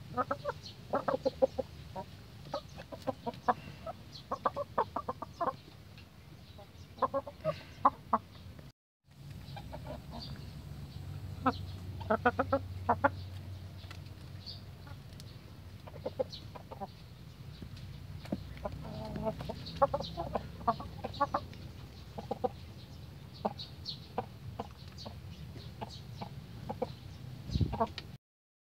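A flock of hens and roosters clucking, with many short calls overlapping throughout and a brief gap about nine seconds in.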